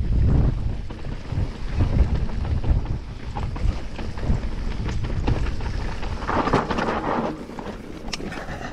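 Wind buffeting the camera microphone during a fast mountain-bike descent on a dirt singletrack, a low rumble with scattered clicks and rattles as the bike goes over bumps. A short hiss comes about six and a half seconds in.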